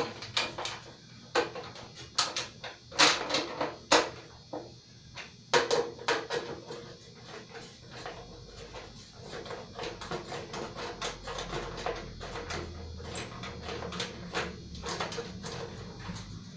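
Wrench working bolts tight on a tractor's steering and electrical box mounting: a run of irregular metallic clicks and clinks, several a second, with a faint low hum joining about eight seconds in.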